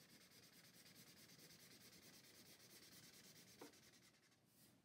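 Faint scratchy rubbing of a felt-tip marker drawn along paper as a letter outline is traced in green, with one soft tick about three and a half seconds in.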